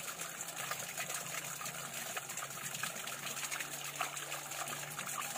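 A stream running steadily, its water trickling and splashing.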